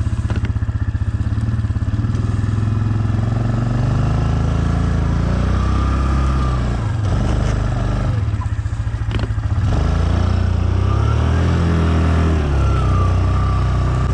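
2007 Yamaha Kodiak ATV's single-cylinder engine running steadily loud while the quad works a plow through deep snow. Its pitch rises and falls, with a rising-and-falling whine over it and a few sharp knocks around the middle.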